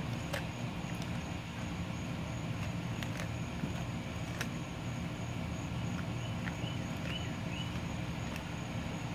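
A wolfdog chewing raw chicken on the bone, with a sharp crunch every second or so, over a steady low hum.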